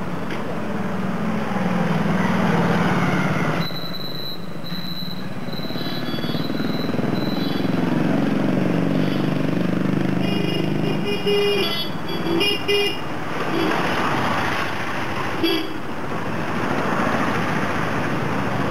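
Passing road traffic: vehicle engines, including motorcycles, rising and falling as they go by. Several short horn toots come in a cluster a little past the middle, then one more toot later.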